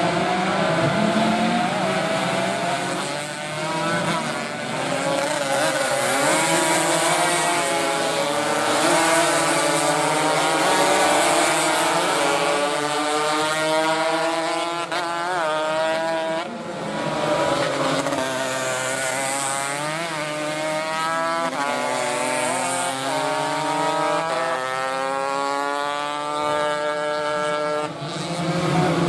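Several racing motorcycles revving hard as they go by, their engine pitch climbing and dropping again and again as the riders shift up through the gears, with more than one engine heard at once.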